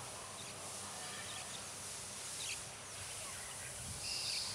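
Open-air ambience: a steady hiss with a few short, high bird chirps, the clearest about four seconds in.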